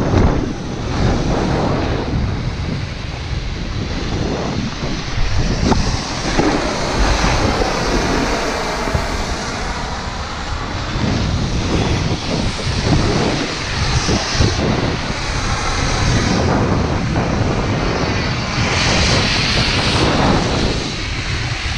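Wind rushing and buffeting over the camera microphone while snowboarding downhill, with the board's edges scraping and hissing over the snow.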